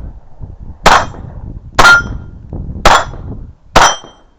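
.22 rimfire gunshots, four in a row about a second apart, each followed by a short metallic ring as a steel target is hit.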